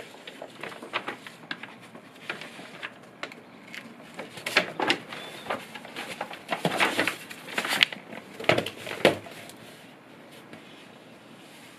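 Sketchbook paper rustling and crackling as a large page is lifted, turned over and pressed flat. It starts with scattered light crinkles, grows into a cluster of louder crackles through the middle, and dies away after about nine seconds.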